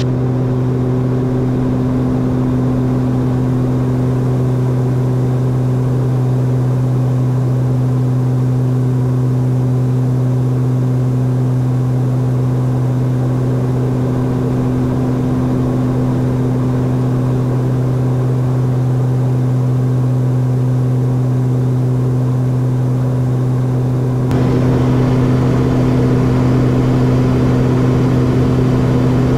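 Cabin drone of a Beechcraft King Air F90's twin turboprop engines and propellers in climbing flight: a steady low hum over a rushing hiss. About 24 seconds in it grows a little louder and hissier.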